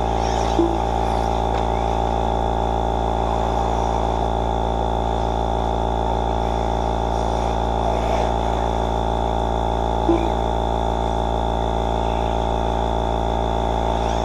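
Steady droning hum made of many fixed tones, unchanging in pitch, with two short beeps, about half a second in and about ten seconds in.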